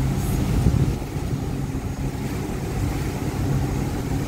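Boat engine running steadily under way, a continuous low drone with the rush of water and air around it.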